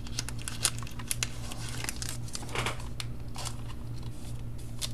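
Trading cards and their plastic or foil packaging being handled by hand: a run of light crinkles and clicks, with a longer rustle about two and a half seconds in.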